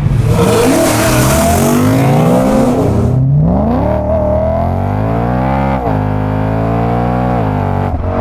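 BMW M3 GTS's 4.4-litre V8 through an Akrapovič exhaust, accelerating hard: the engine note climbs, then drops sharply at an upshift about six seconds in and again near the end.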